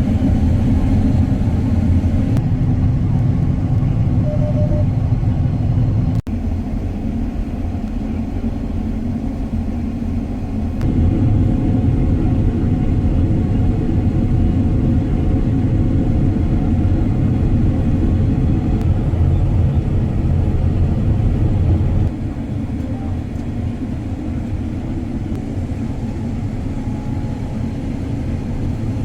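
John Deere combine running steadily while harvesting wheat, a constant low mechanical rumble. The level jumps abruptly a few times.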